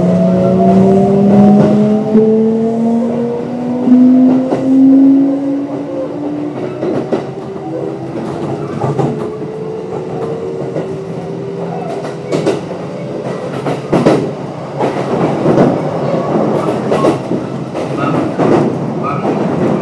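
Kintetsu 1026 series electric train's Hitachi GTO-VVVF inverter and traction motors whining as the train accelerates, several tones rising together in pitch. After about six seconds the whine fades, leaving wheels running on the rails with irregular clicks and knocks over rail joints.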